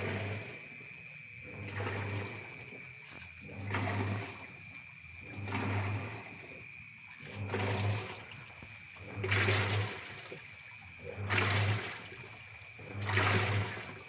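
Panasonic top-loading washing machine agitating a wash: the pulsator motor hums and the water sloshes in a regular swish about every two seconds as the motor reverses. The machine is running normally, its E3 error cleared.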